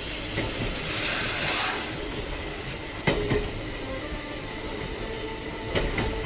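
Battery-powered Plarail toy train running along plastic track: a steady rumble with a few sharp clicks, one about three seconds in and another near the end.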